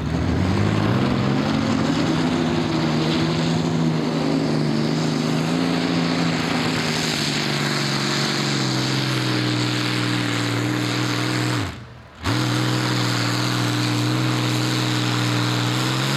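Rover Meteor V12 tank engine of a modified pulling tractor firing up and settling into a steady, deep idle, with a slight rise in pitch as it catches. About twelve seconds in the sound drops away briefly and comes straight back.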